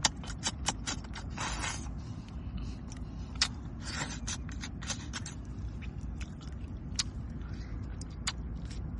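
Irregular sharp clicks and taps, with a couple of short scraping sounds about one and a half and four seconds in, over a steady low rumble.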